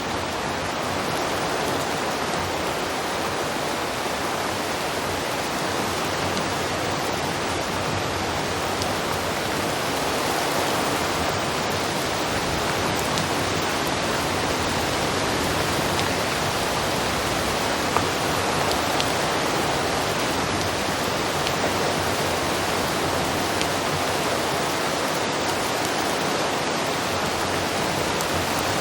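Heavy rain falling steadily in a downpour, a dense even hiss with no let-up, and one faint sharp tick about eighteen seconds in.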